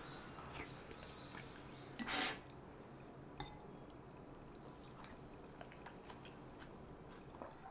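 Quiet eating sounds from a bowl of spicy seafood soup with rice: chewing and faint clicks of a spoon and chopsticks, with one short, louder slurp about two seconds in.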